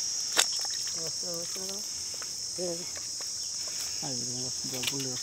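A chorus of insects calling in one steady, high-pitched drone without a break. Faint low voices murmur under it, and there is a single sharp click about half a second in.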